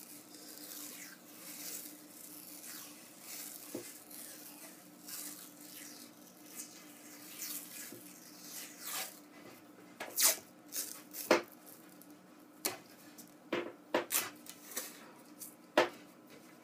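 Hockey tape being peeled off the roll and wrapped around a stick's handle, a run of short rasping peels. In the second half come several sharp clicks and knocks, the loudest sounds.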